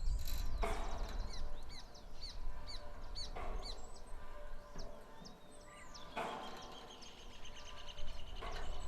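Many small birds chirping over a low wind rumble, with a fast high trill in the last few seconds. A grinding creak from the turning windmill recurs about every three seconds, four times.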